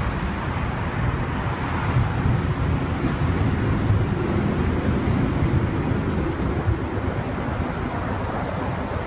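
City traffic noise heard from a moving bicycle, with wind rumbling on the microphone.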